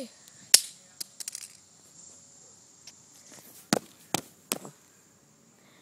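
A few sharp clicks and knocks, the three loudest coming close together about four seconds in, over a faint steady high chirring of crickets.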